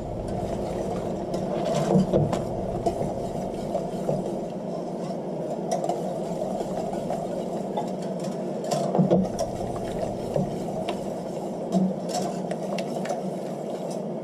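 Wire whisk beating cream into a flour-thickened sauce in a stainless steel pan, with scattered light clicks and scrapes of the wires against the pan, over a steady hum.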